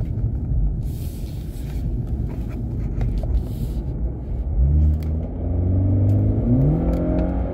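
BMW 330e's turbocharged four-cylinder petrol engine heard from inside the cabin, with the rear silencer removed. A low rumble at first, then the engine drone comes in strongly about halfway through and rises in pitch near the end as the car accelerates.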